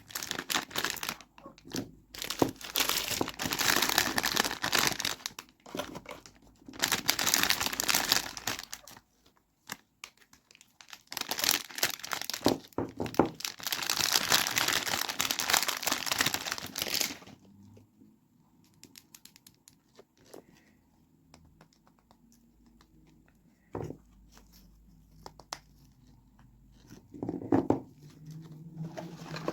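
Soap packaging being torn open and crinkled by hand, in several loud bursts through the first half. After that it goes quiet, with a couple of short knocks in the second half.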